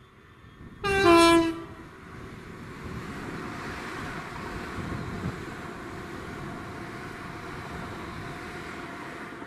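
Class 66 diesel locomotive sounds a short two-tone horn blast about a second in, then its EMD two-stroke V12 engine runs steadily as it passes light engine.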